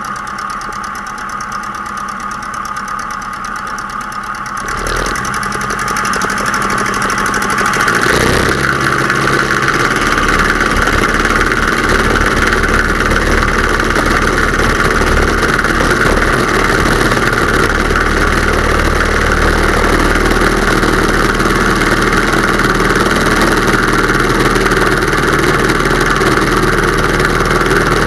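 Pietenpol Air Camper's engine and propeller running at low power, then opening up to full throttle over a few seconds about five seconds in, and holding a steady full-power note through the takeoff run and lift-off.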